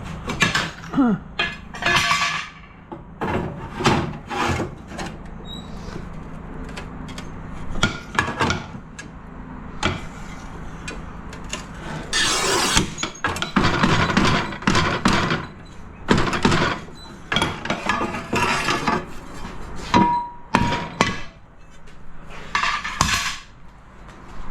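Tiling work on a ceramic tile: repeated sharp knocks and clinks, with longer scraping passes about halfway through, as a tile is cut and broken. The tile is slow to break.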